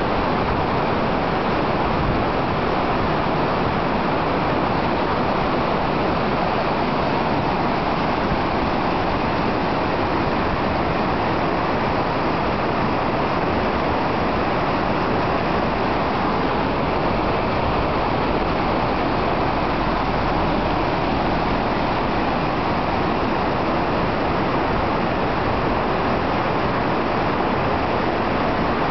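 Steady rush of whitewater: a small river running fast over rapids, a constant, even noise.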